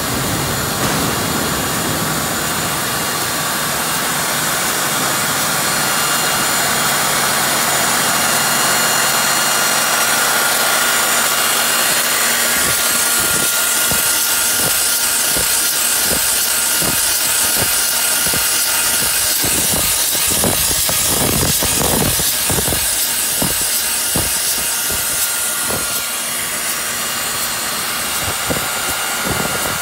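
Portable line boring machine running: its drive motor hums and hisses steadily while the boring bar turns in a steel bore, cutting. Partway through a steady whine joins in, with irregular ticks and knocks from the cut that grow thickest a little past two-thirds of the way.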